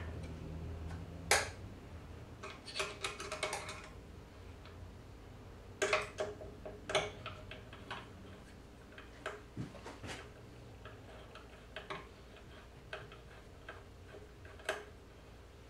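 Scattered sharp metal clicks and taps of hand tools and hardware on the aluminium Z-axis carriage of a DIY CNC router being assembled, with a quick run of clicks about three seconds in.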